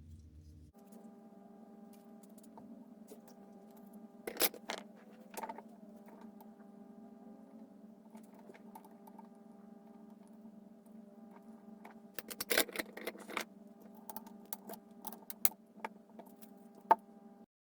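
A steady electrical hum with several even tones, over which come sharp clicks and taps in small clusters, about four seconds in and again about twelve seconds in. The sound cuts off just before the end.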